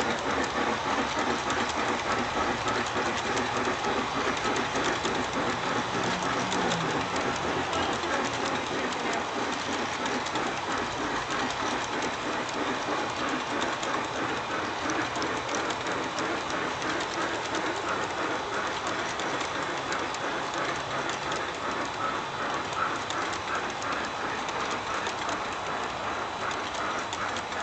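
A long string of G-scale model hopper cars rolling past on track, their metal wheels clattering in a steady rapid clicking.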